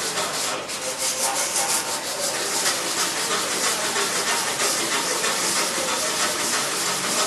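Sanding: abrasive paper worked steadily over a surface, a continuous rasping hiss.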